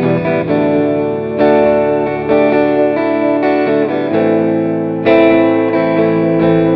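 Background music led by a guitar played through effects, with sustained notes and fresh chords struck every second or two.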